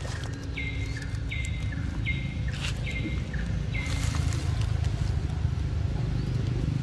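Outdoor ambience: a steady low rumble with a run of five short calls in a row, a little under a second apart, over the first four seconds, and a few faint clicks.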